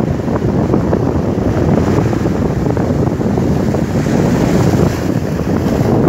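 Atlantic surf washing on the shore, with strong wind buffeting the microphone; the hiss of a breaking wave swells about four seconds in.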